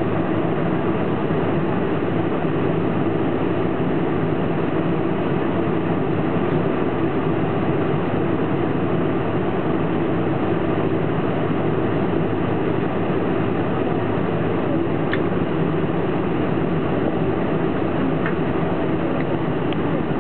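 Steady cabin noise inside a Boeing 747-400 taxiing slowly on its engines at taxi power, with an even, unchanging noise.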